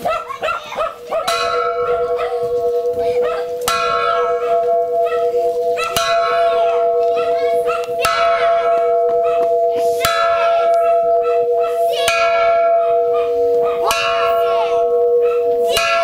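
A hanging bell struck about every two seconds, seven strokes here, its ring carrying on without a break between strokes. This is part of a count of ten strokes per person.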